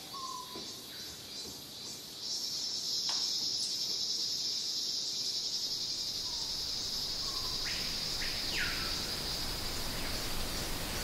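Nature ambience: a steady high-pitched insect drone, like crickets or cicadas, sets in about two seconds in. Short rising bird chirps recur every second or two over it.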